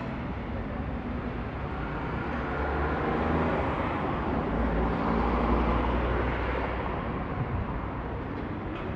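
Street traffic: a steady rumble of passing vehicles that grows louder through the middle and eases off near the end.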